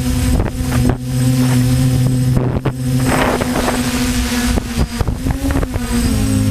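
DJI F450 quadcopter's motors and propellers humming steadily, the pitch wavering a little near the end, with wind buffeting the microphone in irregular thumps.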